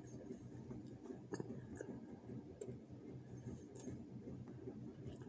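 Faint chewing and mouth sounds with a few soft clicks scattered through, over a low steady hum.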